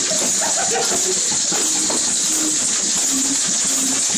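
Group jam on homemade percussion: shakers and rattles made from household materials hissing without a break, with many scattered knocks and taps on boxes and tubs, several players at once.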